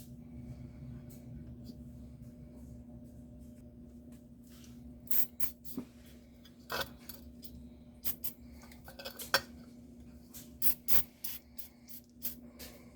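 Light metal clinks and taps, irregular and scattered, starting about five seconds in, as rusty seized needle-nose pliers are handled, over a steady low hum.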